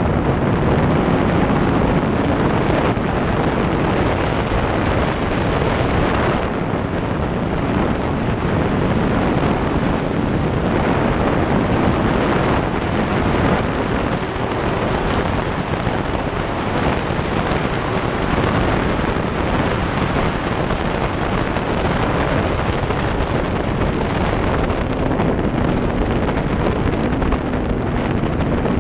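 Steady wind rushing over the microphone of a Yamaha R1 sport bike riding at speed, with the bike's inline-four engine running underneath as a faint, steady tone.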